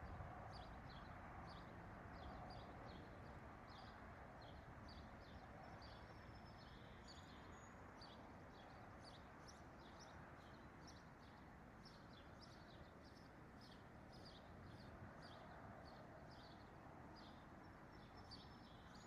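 Faint outdoor ambience: small birds chirping in short high notes, about twice a second, over a steady hiss of background noise.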